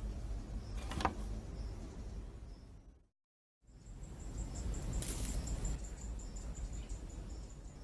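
Outdoor background noise with a steady low rumble and a single short tick about a second in. The sound cuts out for about half a second, then returns with a high, rapidly pulsing chirp running over the noise.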